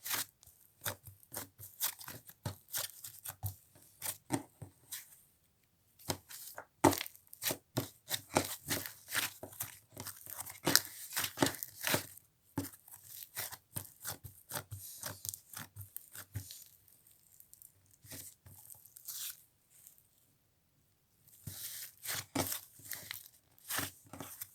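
Butter slime made by mixing clay into slime, being stretched and squished by hand: a dense run of sticky crackling and popping clicks, with a brief lull about five seconds in and a longer one past the middle.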